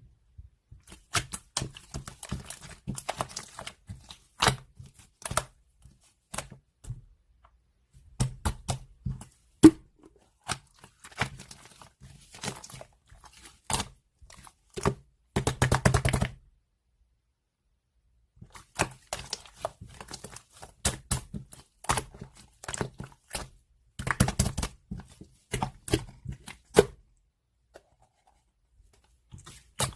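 White slime being squished, pressed and stretched by hand, giving dense runs of sticky clicking and crackling in several spells with short silent gaps between them.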